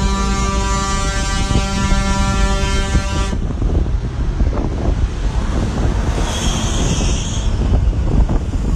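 A long, steady vehicle horn blast that cuts off abruptly about three seconds in, followed by a low outdoor rumble of traffic and wind.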